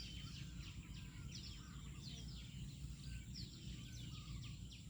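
Birds chirping: many short, quick, falling calls repeating throughout, fairly faint, over a steady low rumble.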